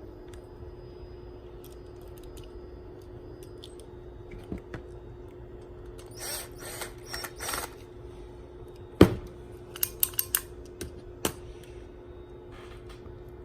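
Small hard parts being handled on a bench: a few scraping, rustling sounds, then one sharp loud click followed by a quick run of lighter clicks, over a steady low hum.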